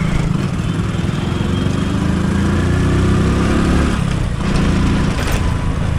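Motorcycle engine running while riding, its pitch climbing for a few seconds, then dropping briefly about four seconds in before picking up again.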